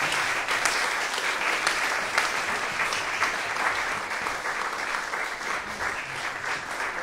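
Applause from a small seated audience at the end of a jazz tune. The clapping is dense and steady and eases off slightly near the end.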